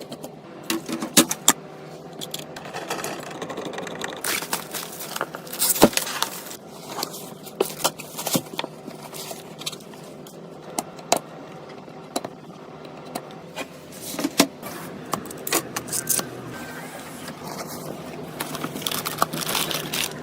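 Hardware being handled and fitted during a PC build: a run of sharp plastic and metal clicks, knocks and scrapes as components are seated and pushed into place.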